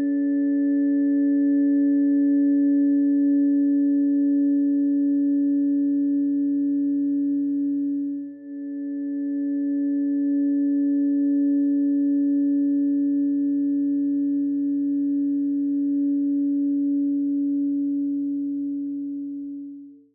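Pure electronic tones held as a steady chord of several pitches: planetary frequency tones for Venus and Mercury, sounded together as a harmony. The chord fades out for a moment about eight seconds in, starts again, and stops at the end.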